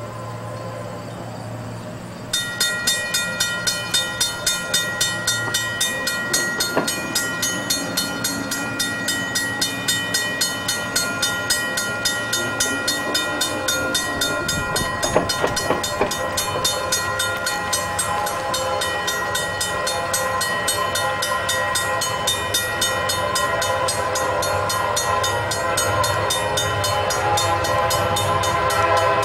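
Level-crossing warning bell ringing in regular strokes about twice a second as a diesel locomotive hauling loaded coal cars comes up to and over the crossing. A few metallic knocks come about halfway through, and the rumble of the locomotive and train grows louder toward the end.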